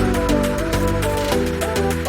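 Background music: a melody of shifting pitched notes over a quick, steady beat with fast ticking percussion.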